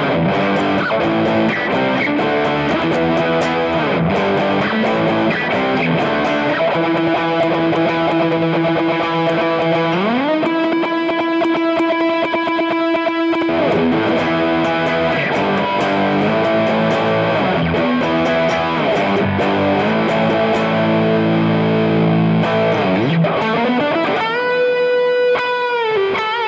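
Gibson Les Paul Standard electric guitar played on its bridge humbucker pickup: a picked lead line of single notes. About ten seconds in, a note is bent up and held; near the end another note is bent up and held with vibrato.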